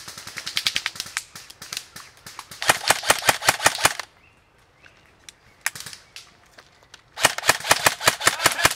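Airsoft rifle fire on full auto: several bursts of rapid sharp cracks, about ten shots a second. The two loudest bursts come in the middle and near the end, with a short burst between them.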